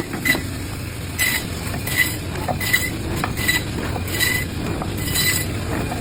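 Production machinery running with a steady low rumble and a short metallic clink repeating at an even pace, about once every three-quarters of a second.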